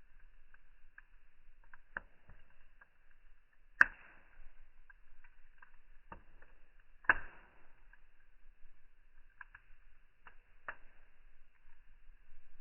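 Crackling of a colour-flame fire played back slowed down: scattered pops and snaps over a faint hiss, the two loudest pops about four and seven seconds in.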